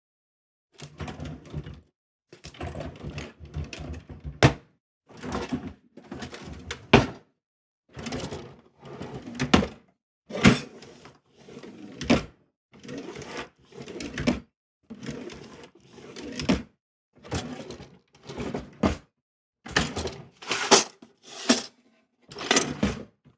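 A kitchen drawer is pulled open and pushed shut again and again, each time with a rattling slide along its runners. Most strokes end in a sharp knock as the drawer hits its stop.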